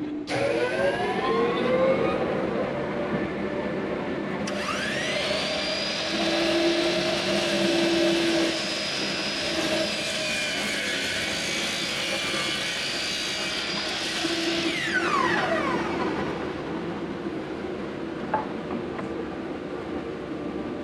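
10-inch compound miter saw's motor spinning up with a rising whine about four seconds in, running through a cut, then winding down with a falling whine about fifteen seconds in. A steady machine whir continues underneath.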